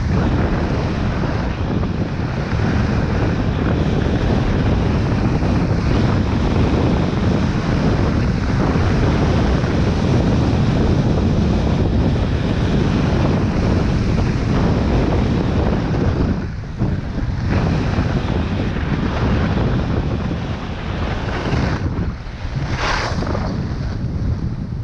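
Wind buffeting a body-mounted action camera's microphone while skiing downhill, a steady loud rush mixed with skis running over packed snow. Near the end the rush drops as the skier slows, and a short sharper hiss of ski edges scraping the snow stands out.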